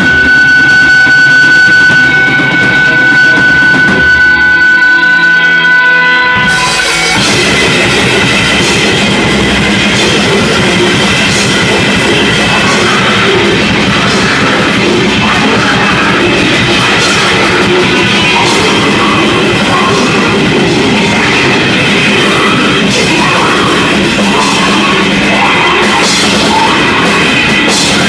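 Grindcore band playing live at full volume. For the first six seconds a steady high ringing tone holds over a thinner mix, then about six and a half seconds in the full band comes in with fast, dense drumming and distorted guitars.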